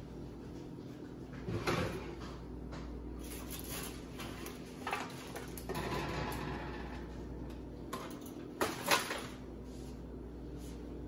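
Metal oven door and rack handling as an aluminium foil pan of baked chicken is slid out of an electric oven and set on the stovetop: a few knocks, a longer metal scrape about halfway, and two sharp clanks close together near the end, over a steady low hum.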